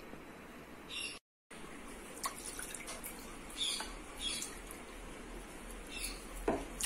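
Coconut milk poured from a plastic container into a non-stick pan: a faint trickle, with a few light scrapes and clinks from a steel cup.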